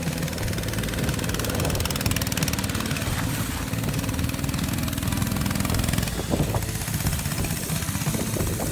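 Homemade go-kart's small engine running steadily while the kart drives, with a few brief knocks about six and a half seconds in.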